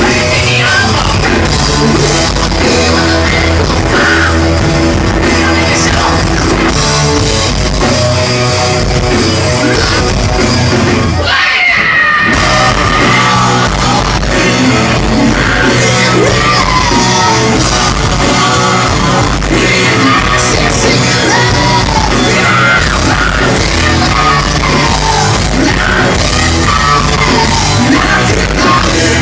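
Loud rock music: a band with a lead singer. The band drops out for about a second a little before halfway, then comes back in.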